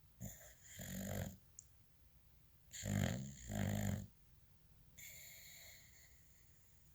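A boxer dog snoring in its sleep: loud snores about a second in and again around three to four seconds in, then a fainter one.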